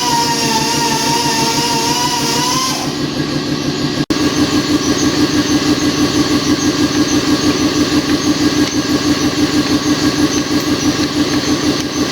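A motor running steadily with an even pulsing, about five or six pulses a second, starting abruptly after a cut about four seconds in. Before the cut there is a sustained, slightly wavering tone.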